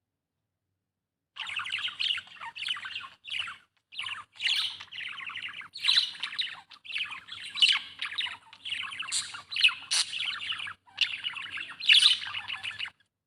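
Budgerigar chattering and warbling in fast runs of chirps and squawky notes, with short breaks; it starts about a second in.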